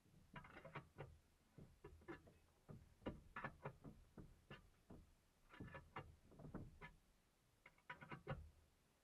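Faint, irregular knocks, clicks and rustles of gear being handled inside a stationary rally car's cabin, with no engine running.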